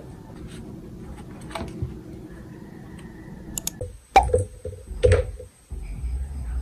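Handling sounds on a desk: a few light clicks and taps as a small speaker is set on a monitor stand's base, then, after a cut, an electrical cord and a plastic bulb socket being picked up, with two louder knocks and short rattles. A faint steady high whine sits under the second part.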